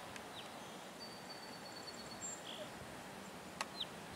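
Small birds chirping: a few short, high, falling chirps, and about a second in a thin, steady high whistle that lasts nearly two seconds, over a steady outdoor background hiss.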